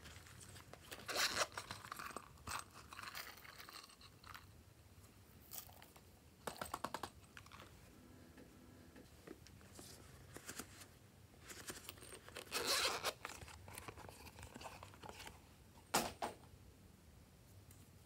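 Silicone pop-it fidget toys being flexed and pressed by hand: scattered popping clicks and rubbing, with a quick run of clicks about seven seconds in and louder crackly bursts around thirteen seconds and again near sixteen seconds.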